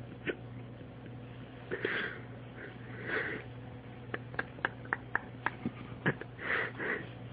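A person's short sniffing breaths through the nose, several times, with a quick run of light clicks about three a second in the middle, over a steady low hum.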